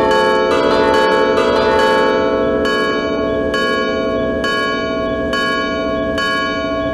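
Church bells ringing: struck about twice a second for the first couple of seconds, then about once a second, each strike's tone ringing on and overlapping the next.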